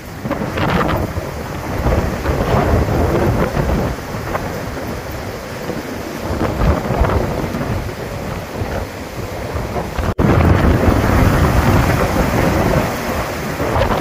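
Hurricane-force wind blowing and buffeting the microphone, with heavy rain. There is a split-second dropout about ten seconds in, and the low rumble is louder after it.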